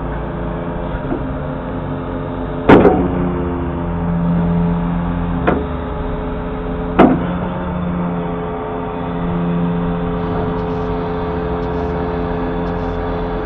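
Volvo FE truck's diesel engine running steadily to drive the HIAB crane's hydraulics, rising in pitch twice as the crane swings and lowers a bulk bag. Three sharp metallic clanks come in the first half, the first the loudest.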